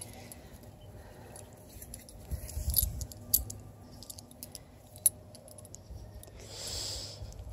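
Faint clinks from dog leash and collar hardware, with rustling and a few knocks from the hand that holds the phone and the leash. A short hiss comes near the end.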